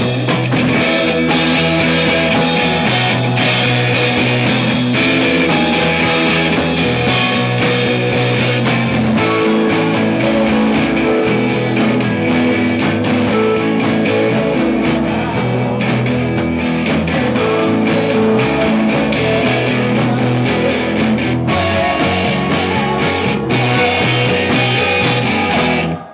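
Rock band playing a song, with guitar prominent in a loud, dense mix.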